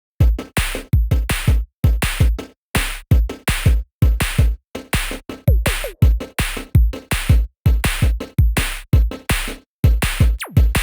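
Electronic music with a choppy drum-machine beat: heavy, deep hits about three a second, each cut off short by a moment of silence.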